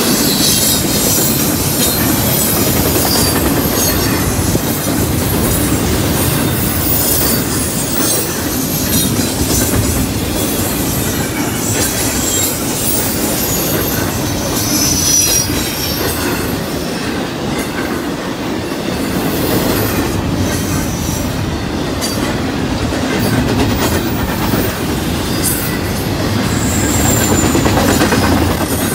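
Double-stack intermodal container well cars rolling past: a steady rumble of steel wheels on rail with clicking from the rail joints and brief high-pitched wheel squeals now and then.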